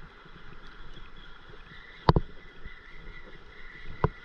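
Light water noise around a paddleboard on the sea, with two sharp knocks, one about two seconds in and one near the end.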